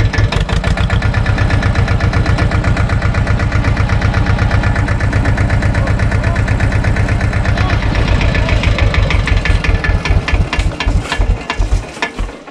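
SAME tractor's diesel engine running at a steady speed with an even, rapid chugging beat, then dying away near the end.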